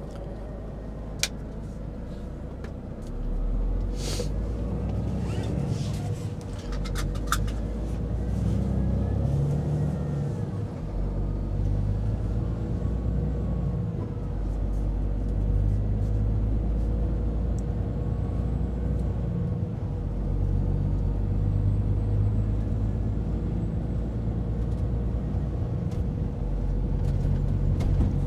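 Heavy truck's engine running with a steady low rumble that grows louder about three seconds in, as it pulls away or speeds up. A few sharp clicks come in the first several seconds.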